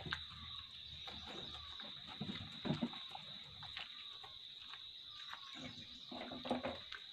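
Calf eating feed from a plastic basin: munching with scattered clicks and a few louder knocks, about three seconds in and again near the end, over a steady high-pitched chirring.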